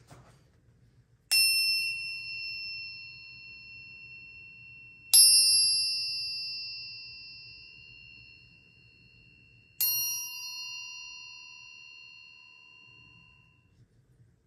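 A forged railroad spike tuned as a wind chime, hanging on a string, struck three times. Each strike rings in a clear, high tone that fades over several seconds, and the second strike is the loudest.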